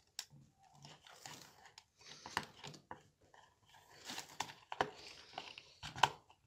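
Faint, scattered clicks and short scrapes of a screwdriver turning a contactor's coil terminal screw as a wire is fastened under it.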